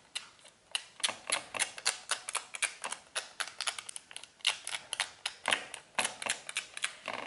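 Long fingernails tapping and clicking on the glass screen of an iPhone 12 Pro Max: a quick, irregular run of sharp clicks, several a second.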